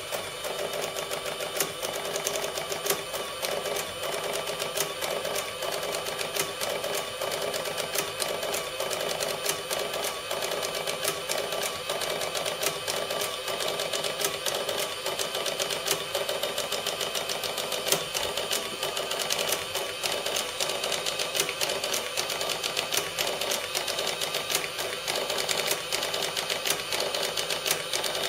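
Sharp XE-A106 cash register's receipt printer printing an end-of-day Z sales report: a fast, even run of rapid clicking that does not let up.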